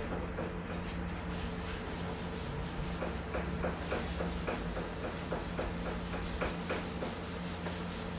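Paintbrush scrubbing on canvas in quick repeated strokes, several a second, over a steady low hum.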